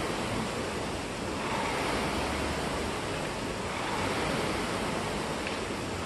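Air-resistance rowing machine's flywheel fan whooshing steadily, the rush swelling with each pull of the stroke during a hard row.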